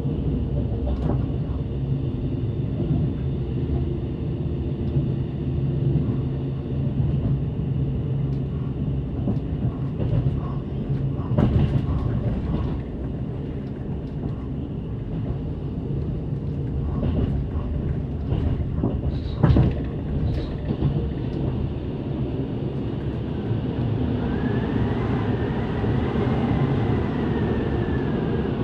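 Running noise of a Zentralbahn narrow-gauge passenger train heard from inside the carriage: a steady low rumble with a few sharp knocks from the wheels on the track. Near the end a faint whine rises and then falls.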